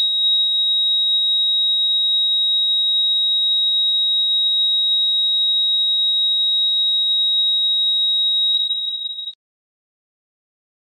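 Steady high-pitched electronic beep of a heart-monitor flatline sound effect, one unbroken tone that cuts off suddenly near the end, signalling death.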